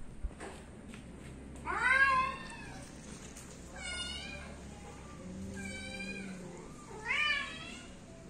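Persian cat meowing four times, short meows about one and a half to two seconds apart, the first, about two seconds in, the loudest.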